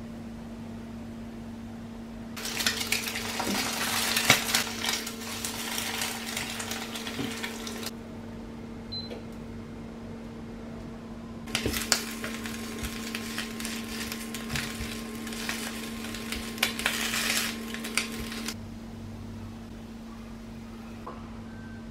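Kitchen cooking sounds: two long stretches of crackling, clattering noise with sharp clicks, each starting and stopping abruptly, over a steady low hum.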